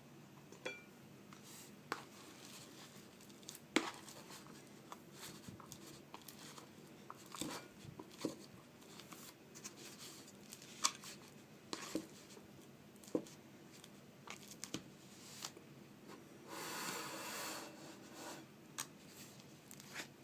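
Handling sounds: scattered light clicks and taps of plastic and kitchenware being handled, with a short crinkling rustle about seventeen seconds in.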